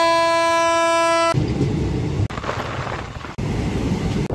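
Electric locomotive's horn sounding one steady note for over a second, stopping abruptly, followed by the low rumble and rattle of a train running on the rails, heard from aboard the moving train, with a couple of sudden breaks.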